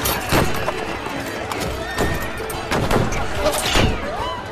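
Film action soundtrack: music and voices mixed with a horse neighing and several sharp bangs about a second apart.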